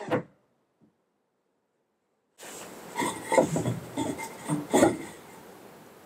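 A short clunk right at the start, then dead silence for about two seconds, then an irregular run of wooden knocks, clunks and rubbing as wooden boards are handled, loudest around three and a half and five seconds in.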